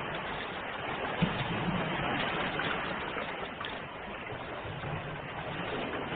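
Ocean waves rushing and washing on a shore, a steady surf noise that eases slightly and swells again, with one brief tap about a second in.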